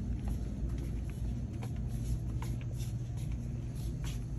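Steady low hum of a store's background noise, with scattered faint clicks and taps.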